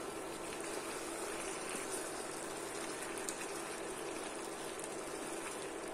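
Sheep head curry simmering in a pot, a steady bubbling hiss, as a wooden spoon stirs through the meat and thick gravy with a few faint soft knocks.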